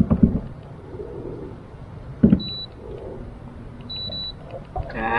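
A single knock, then two short high-pitched electronic beeps about a second and a half apart, and a brief drawn-out vocal sound near the end.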